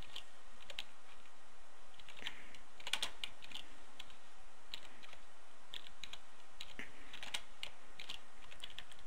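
Typing on a computer keyboard: irregular keystroke clicks in quick runs, over a steady background hiss.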